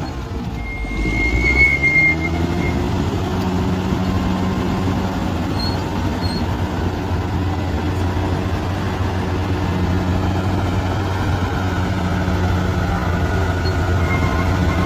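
Bulldozer's diesel engine running steadily under load, rising in pitch about a second in. Brief high squeaks come about a second in and again near the end.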